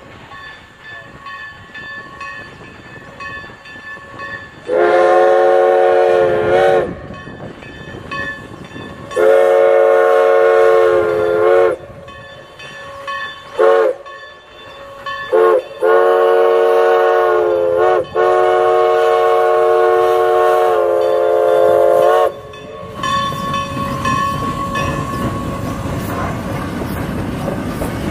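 Steam locomotive's chime whistle blowing a sequence of loud blasts: two long ones, a few short ones, then a long held blast. This is the grade-crossing warning as the train nears a road crossing. Near the end the whistle stops and the rumble of the locomotive and passenger cars passing close by grows louder.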